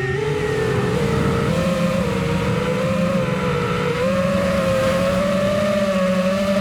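FPV racing quadcopter's brushless motors whining in flight. The pitch dips just as the sound begins, then climbs and wavers with the throttle, holding steadier in the second half.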